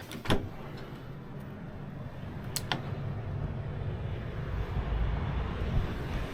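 Steady low rumble of road traffic that swells about two thirds of the way through, with a sharp click right at the start and another about two and a half seconds in.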